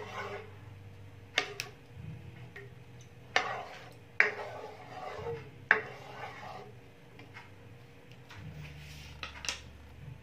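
A ladle stirring coconut milk in a metal pan, knocking against the pan now and then with several sharp, irregularly spaced clinks.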